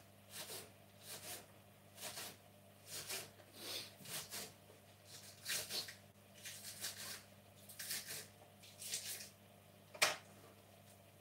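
Spring onions being chopped with a knife on a chopping board: irregular short crunchy cuts, one or two a second, with one sharper knock about ten seconds in.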